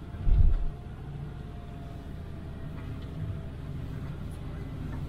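Motorhome driving slowly, its engine and road noise a steady low rumble heard from inside the cab, with a short low thump about half a second in.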